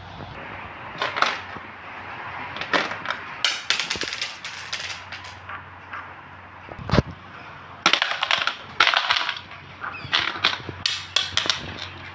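A small stone being batted about by a cat, clicking and rattling in irregular bursts, with one sharp knock about seven seconds in.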